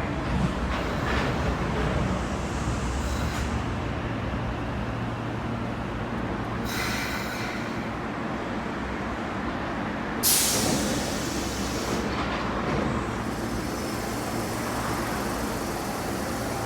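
Osaka Metro Midosuji Line train at a station platform, running with a steady low rumble. There is a burst of hiss about seven seconds in, and a louder, sudden hiss just after ten seconds that fades away.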